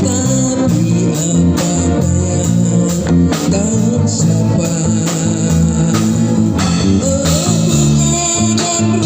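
Music with guitar, bass and a steady beat, played loud through a sound system.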